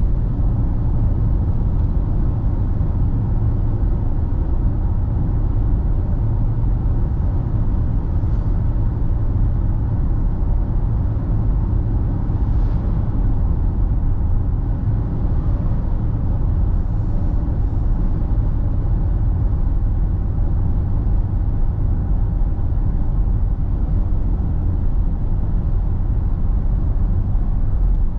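Car driving along a road: a steady low rumble of road and engine noise that does not change.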